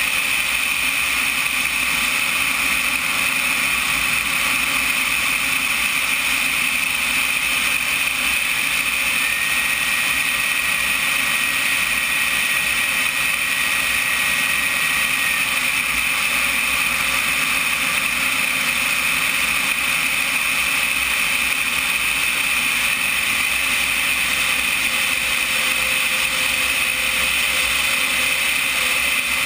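Turbine engine of a CompARF Flash RC jet running steadily in flight, heard from a camera on the jet's belly with rushing air over it. A faint high whine comes in about nine seconds in and fades out near sixteen seconds.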